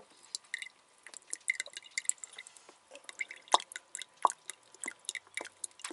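Water dripping from a drink bottle's nozzle into an open cell of a wet-cell battery as the low cell is topped up: a scatter of small irregular drips, with a couple of sharper drips about three and a half and four seconds in.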